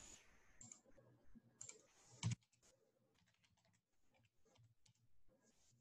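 Faint computer mouse clicks and keyboard keystrokes, a sharper click a little over two seconds in, then scattered light taps.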